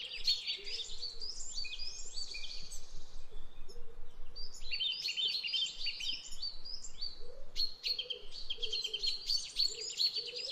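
Small birds chirping and twittering in fast, high, overlapping trills that pause briefly twice, with a fainter, lower warbling call underneath.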